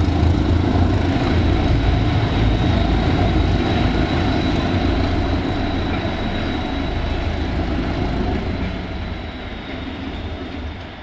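Northern Ireland Railways Class 450 'Thumper' diesel-electric multiple unit 8451 pulling away, its diesel engine running with a heavy low rumble. The sound fades steadily as the train draws off.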